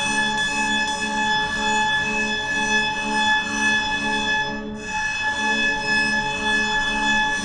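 Alarm-clock beeping run through an Eventide Space reverb pedal on its Hell's Gate preset: the beeps smear into a steady, ringing chord of high tones over a low throb that pulses about three times a second, dipping briefly a little past the middle.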